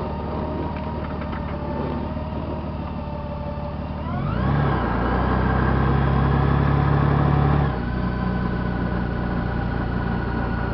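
Honda GL1800 Gold Wing's flat-six engine running steadily, then revving up about four seconds in, held at higher revs for about three and a half seconds, and easing back to a steady lower note.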